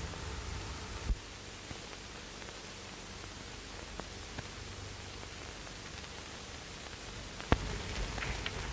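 Steady hiss and crackle of an old optical film soundtrack with no other sound, broken by a sharp click about a second in and a louder one about seven and a half seconds in, with a few faint ticks after it.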